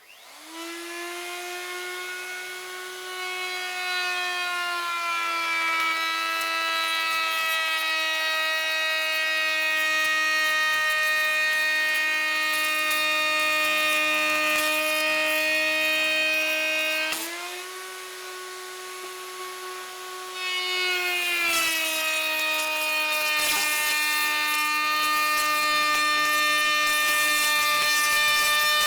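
Electric router starting up and cutting a profile along 16 mm MDF with a large bit: a steady, loud motor whine with a cutting hiss. Its pitch drops as the bit takes load in the cut, rises back for a few seconds partway through, then drops again under load.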